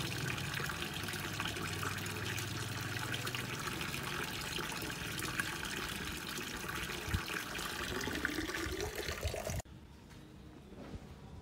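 A thin stream of water from a pump-fed spout pouring and splashing into a cement fish pond. The flow cuts off suddenly near the end, leaving near silence.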